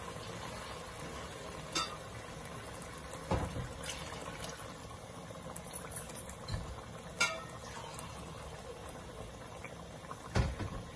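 Chickpea and potato curry with freshly added water bubbling in a steel pot on a gas burner, coming up to the boil: a steady bubbling hiss, with four brief louder clicks spread through it.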